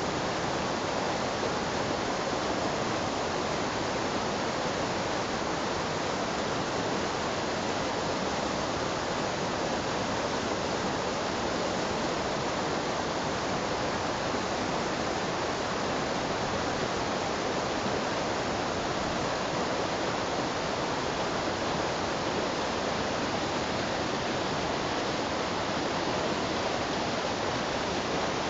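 Mountain stream rushing over boulders in small cascades: a steady, even roar of white water with no change.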